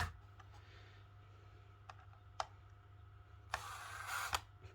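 A few light clicks and a brief rustle of speaker parts being handled, over a steady low hum.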